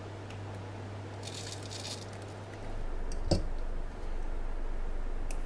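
Crushed hemp and flax seeds rustling as they are handled in the hand, over a low steady hum that changes about three seconds in; a single light knock about three seconds in.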